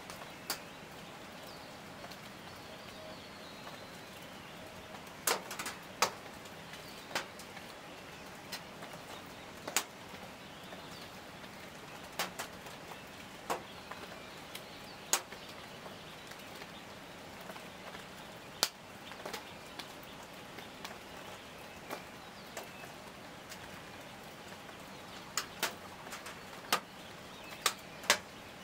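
Sharp single clicks, about twenty at irregular intervals and some in quick pairs, over a steady hiss of forest background with a few faint bird calls.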